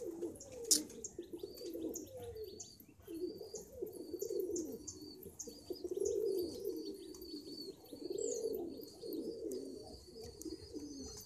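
Pigeons cooing, rounded low calls rising and falling one after another, over a steady run of short, high-pitched cheeps repeating several times a second. A single sharp click just under a second in.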